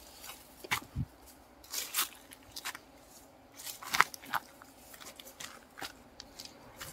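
Dry twigs and undergrowth crunching and crackling in scattered, irregular snaps, the loudest about four seconds in.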